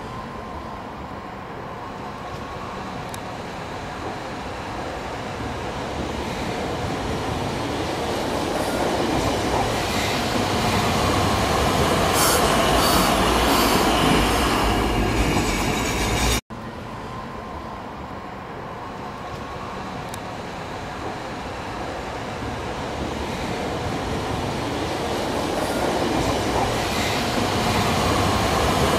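Hakodate City Tram streetcar running on street track, growing steadily louder as it approaches, with brief high-pitched wheel noise as it comes close. The sound cuts off abruptly about halfway through and the approach builds up again.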